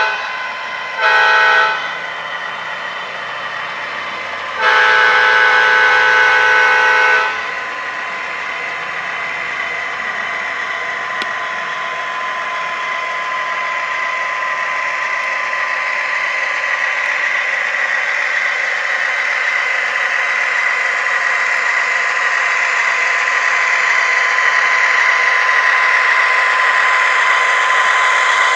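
The sound system of an MTH HO scale CSX diesel locomotive model sounds its multi-tone horn: the end of one blast at the start, a short blast about a second in, and a long blast of about two and a half seconds around five seconds in. Under the horn runs the model's steady diesel engine sound, which grows louder toward the end as the locomotive comes closer.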